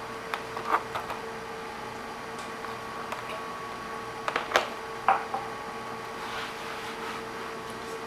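Scattered light clicks and knocks of a laptop being handled, a cluster about a second in and a louder few around four to five seconds in, over a steady hum.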